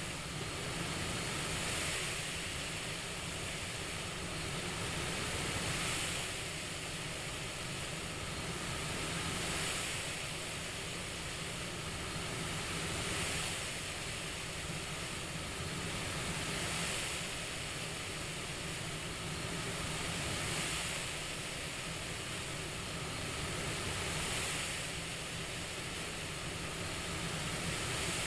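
CPAP machine airflow hiss, swelling and easing evenly about every three and a half to four seconds like slow breathing, over a steady low hum.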